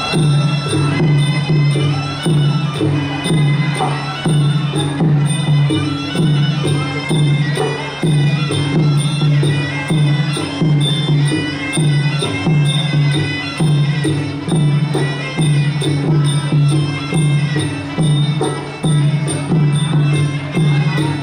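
Traditional Khmer boxing ring music: a steady drum beat of about one and a half beats a second under a high melody line.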